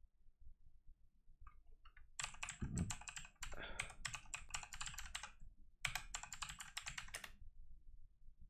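Rapid typing on a computer keyboard, a quick run of key clicks from about two seconds in, a short pause, then a second run near the end.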